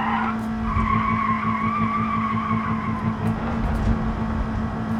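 Old Ford's engine being cranked with a low uneven chugging. A wavering high-pitched squeal runs over it for the first couple of seconds.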